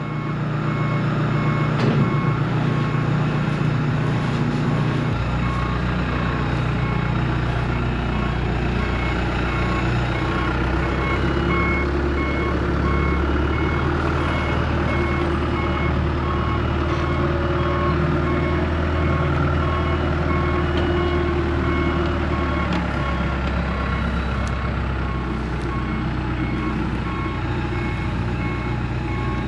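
A heavy machine's engine running steadily while its reverse alarm beeps over and over. The engine note deepens and gets heavier about five seconds in.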